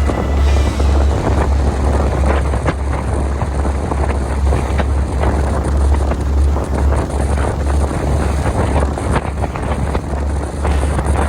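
Fishing boat's engine running steadily underway, a loud low drone, with wind buffeting the microphone in gusts.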